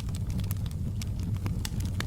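Wood fire burning in a fireplace, crackling: many quick sharp pops and snaps over a steady low rumble of the flames.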